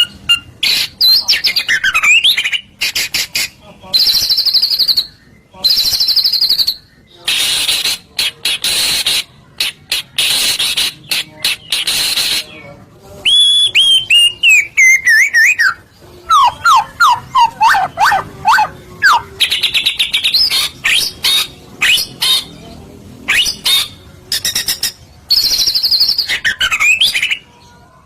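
White-rumped shama (murai batu) singing a loud, varied song: clear whistled phrases, dense buzzy rattles, and runs of quick falling notes, with short pauses between phrases.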